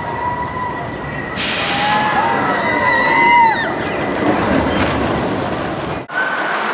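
Steel roller coaster train rushing past with a rumble, riders screaming as it goes by. A sharp hiss lasts about half a second near the start of the pass.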